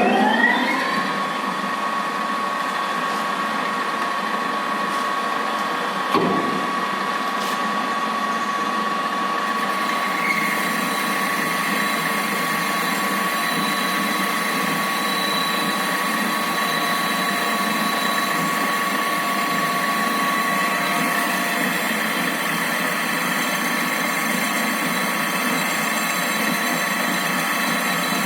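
Metal lathe spinning up to speed, then running steadily with a high whine, likely while turning a flange. There is a brief knock about six seconds in.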